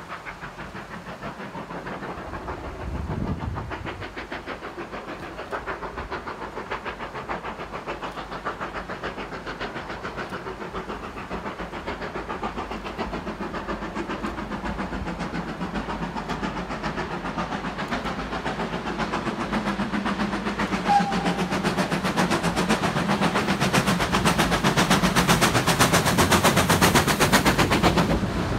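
Steam locomotive working hard at the head of a passenger train, its exhaust beats coming fast and even and growing steadily louder as it approaches.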